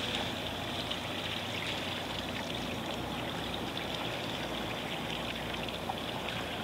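Sea water lapping and trickling against a kayak's hull: a steady, even rippling with many tiny splashes.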